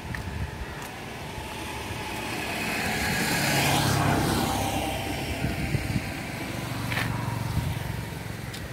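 A motor vehicle passing by, its engine and tyre noise growing to its loudest about four seconds in and then fading away.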